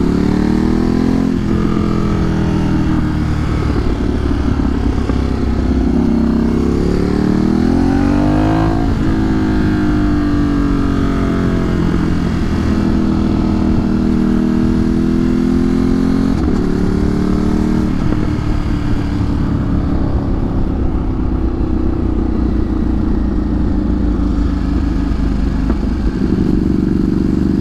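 Ducati Streetfighter motorcycle engine running while being ridden, its revs rising and falling, with several sudden pitch changes from gear shifts.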